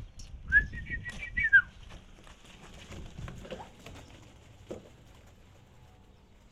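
Ostrich chick giving a single whistled call of about a second: it rises, warbles, then falls away. Fainter short calls follow a few seconds later over low shuffling.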